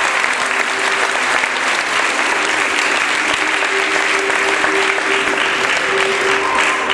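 Audience applauding steadily throughout, with faint sustained music underneath.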